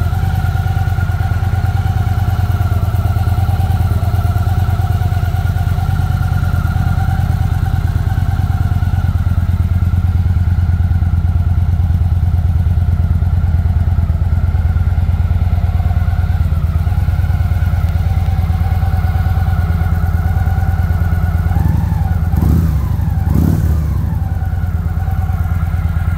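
Victory Magnum's air-cooled Freedom V-twin engine idling steadily in neutral, with a couple of short knocks about 22 seconds in.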